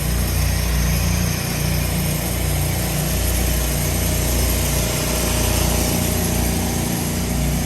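Gas engine of a pressure washing rig running steadily under load, with the steady hiss of spray.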